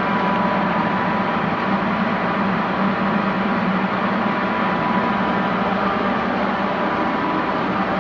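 Giddings & Lewis No. 25 horizontal boring mill running steadily while milling, a constant machine hum with a faint high whine over it.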